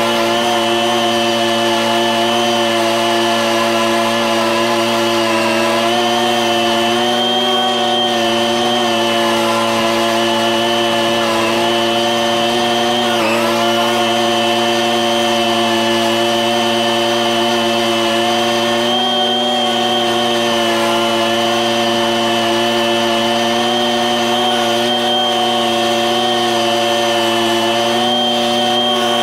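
Lawn mower engine running steadily while cutting grass, its pitch dipping briefly about halfway through.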